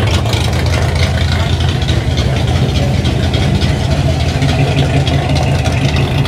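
Engine idling steadily, a low even hum that doesn't change in pitch or level.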